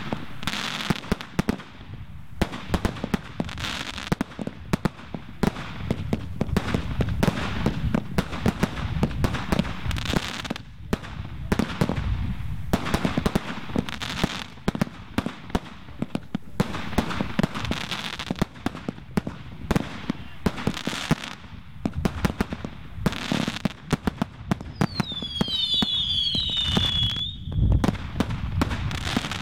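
A fireworks display: a rapid, continuous barrage of launches and bursting shells with bangs and pops. About 25 seconds in, several whistles sweep down in pitch together and then hold for a moment.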